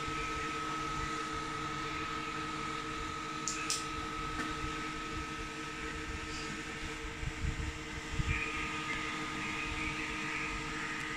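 Cooling fans of a Ku-band digital TV transmitter running, a steady whir with a constant high whine and lower hum tones. A few low bumps sound about two-thirds of the way in.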